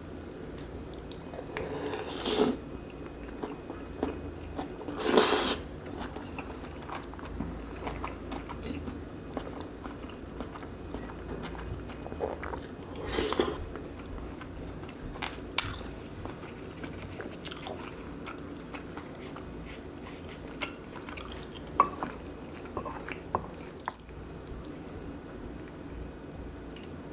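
Close-miked eating of braised pork belly kimchi jjim with rice: biting and chewing. There are a few louder wet bursts and several short sharp clicks.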